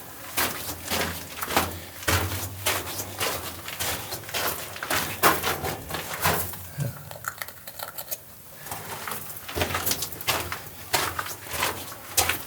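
Footsteps crunching and scuffing on loose rock on a mine tunnel floor, irregular steps that pause briefly a little past halfway.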